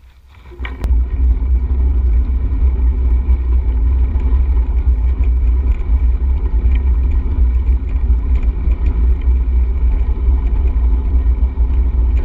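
Wind buffeting the microphone on a moving bicycle, a loud steady low rumble that starts suddenly just under a second in, after a click.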